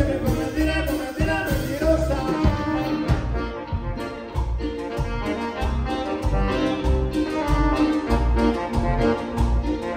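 Live band playing Latin dance music, with electric bass, guitar, keyboards, congas and drum kit over a steady beat.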